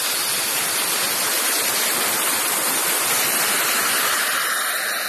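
Homemade gas-fuelled turbojet engine running, a loud, steady rushing noise from the jet with no change in pitch.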